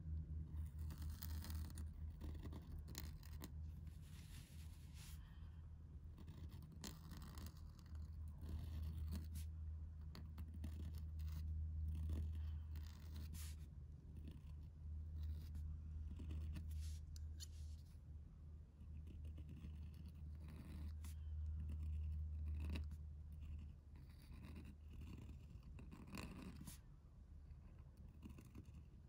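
Pointed steel calligraphy nib in an oblique holder scratching across paper in short, separate strokes. A low steady hum runs underneath and weakens in the last few seconds.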